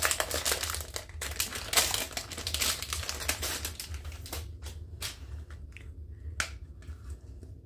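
Clear plastic packaging bag crinkling as a mini ring binder is slid out of it. This gives way, a bit past halfway, to a few separate sharp clicks as the binder is handled and its snap-button strap is worked open.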